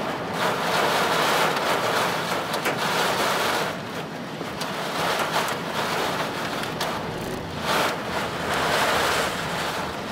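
Heavy wind-driven rain and gusting wind around a moving car, with tyres hissing on the wet road, heard from inside the car; the rain of a tornado's rain-wrapped core. The rush swells and eases every few seconds, with a few sharp ticks of drops striking.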